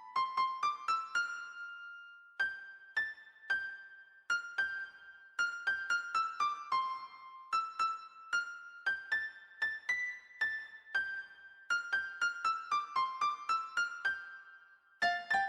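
Background music: a slow melody of single high notes played on a piano-like keyboard, each note struck and left to fade. A quick rising run of notes opens it, with a short pause after, and quicker runs follow later before another brief pause near the end.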